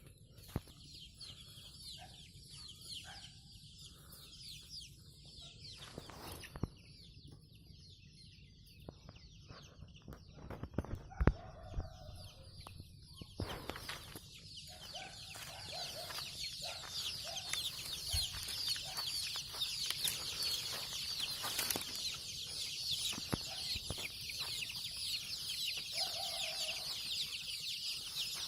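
A flock of chickens calling together, a dense crowd of high cheeping with some clucks, growing louder from the middle on. A few sharp knocks sound around the middle.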